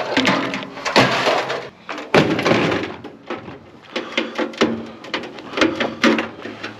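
Irregular metal knocks, clatters and scraping as a scrap microwave oven is being pried and pulled apart by hand.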